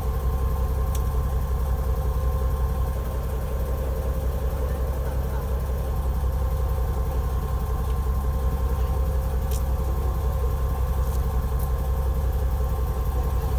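A fishing boat's engine running steadily at idle: an even low drone with a faint steady whine above it.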